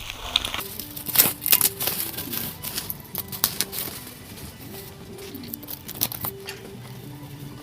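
Masking tape and paper being peeled and crumpled off a freshly painted engine, a run of irregular crackles and tearing sounds, over quiet background music with a slow melody.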